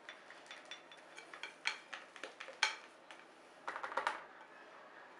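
A spatula scraping and tapping against a glass mixing bowl as thick batter is scraped out into a silicone cake mould: a few light, scattered clicks, then a quick run of taps about four seconds in.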